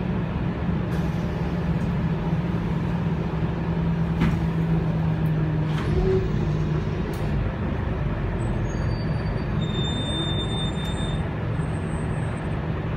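Cabin sound of a Scania K280UB bus under way: its 9.3-litre five-cylinder DC9 diesel and ZF Ecomat automatic gearbox give a steady drone that sinks slightly in pitch over the first half, over road noise. It carries a few light knocks and rattles, and faint high squeaks near the end.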